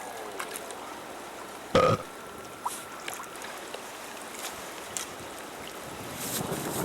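Steady rush of water with wind on the microphone, at a warm-water discharge in a creek. About two seconds in there is a short, sharp sound with a brief tone in it, and a few light clicks follow. Near the end the wind and water noise grows louder.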